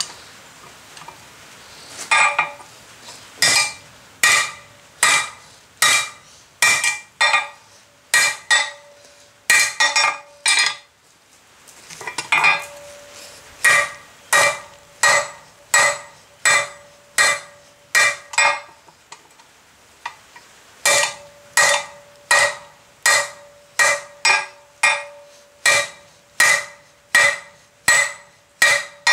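Hand hammer blows on a red-hot steel bar lying on a hornless block anvil, struck in a steady rhythm of about one and a half blows a second, with two short breaks, about a third of the way in and again about two-thirds in. In the later runs each blow leaves the anvil ringing briefly. The bar is being drawn out into the reins of a pair of flat-jaw tongs.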